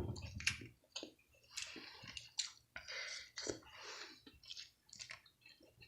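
A person chewing food with the mouth open, faint irregular wet clicks and squishes.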